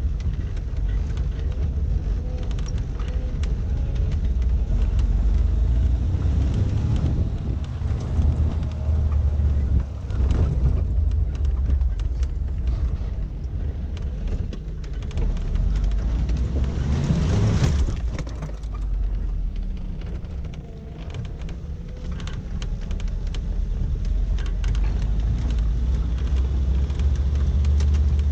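Suzuki SJ413 Samurai's four-cylinder engine running as the 4x4 drives over a dirt mountain track, with many short rattles and clicks from the rough surface. There is a louder rush of noise about two-thirds of the way through, and the engine pitch rises right at the end as it accelerates.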